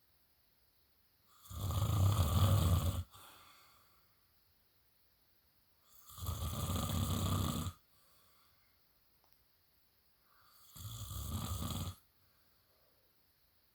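A sleeping man snoring heavily: three loud, rattling snores, each about a second and a half long and about four to five seconds apart, the last one shorter and quieter, with quiet breathing gaps between them.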